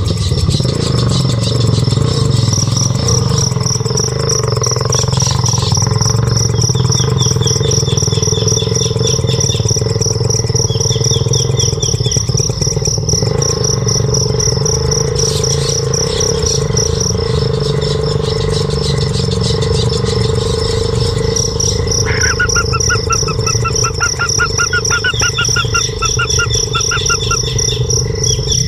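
Outdoor ambience: an insect trills steadily in rapid pulses, with birds calling in quick runs of repeated chirps, a lower run starting about two-thirds of the way in, over a steady low rumble.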